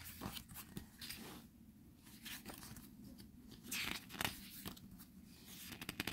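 Pages of a glossy photo book being turned by hand: several soft paper swishes and rustles, the clearest about a second in and again around four seconds in.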